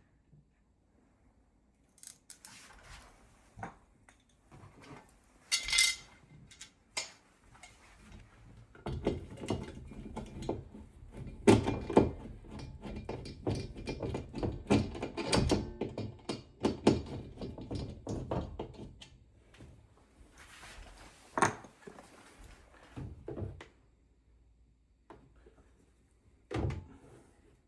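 Clattering and knocking of hand tools and metal mounting hardware being handled, with a dense run of knocks and rattles through the middle and a few separate sharp knocks after.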